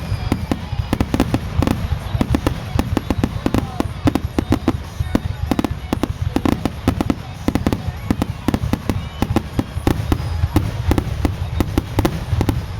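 Aerial fireworks going off in a dense, rapid barrage: many sharp bangs a second over a continuous low rumble.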